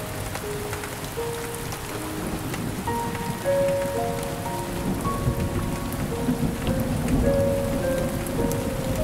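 Steady rain falling, with a low rumble underneath and a slow melody of held notes playing over it.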